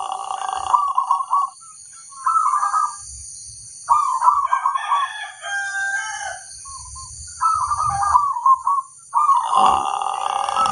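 Zebra doves (perkutut) cooing in repeated bubbling phrases that come one after another, with a louder, denser stretch just after the start and another from about nine seconds in. A steady high-pitched hiss runs underneath.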